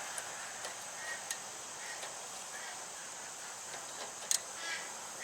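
A few small metallic clicks from a wrench tightening the lock nut on a rear brake adjuster bolt, with one sharper click about four seconds in, over a steady high-pitched hiss.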